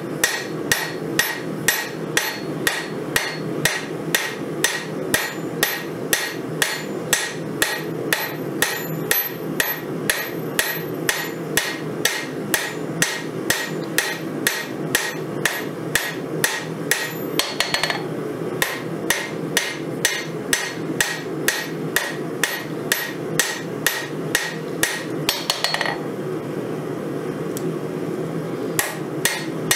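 Hand hammer striking a hot 5160 steel knife blank on an anvil, a steady rhythm of about two to three ringing blows a second over a low steady hum.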